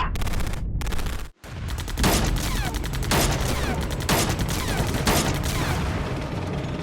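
Movie action-scene sound effects: sustained rapid machine-gun fire with heavy bass, briefly cutting out just over a second in, then punctuated by heavier blasts about once a second.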